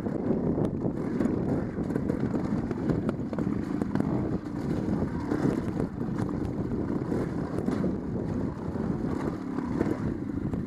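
Trials motorcycle engine running as the bike picks its way down rough, rocky ground, with frequent knocks and rattles from the bike jolting over bumps.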